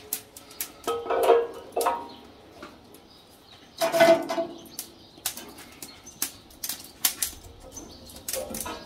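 Firewood sticks clattering and knocking against the steel fire box as they are fed into a wood fire, with the fire crackling in scattered sharp clicks. The loudest clatters come about a second in and about four seconds in.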